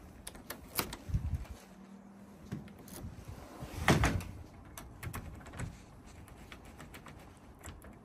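Scattered clicks and knocks from a uPVC door's handle and euro cylinder lock being handled with a key, the loudest knock about four seconds in and small clicks near the end as the key goes into the cylinder.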